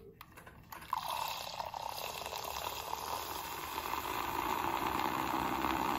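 Nespresso electric milk frother running, its spinning whisk whirring and swishing the milk into foam. It starts about a second in and grows slowly louder.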